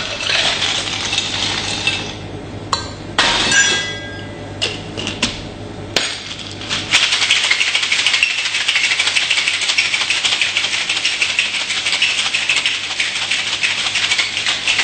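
Ice rattling hard inside a cocktail shaker being shaken vigorously. Irregular clinks and knocks come first as the shaker is handled and starts moving, then from about seven seconds in a dense, steady rattle runs until it stops near the end.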